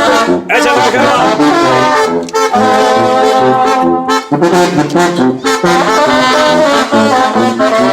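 Mexican banda (brass band) playing, with trumpets and trombones carrying held notes over a low bass line, pausing briefly between phrases.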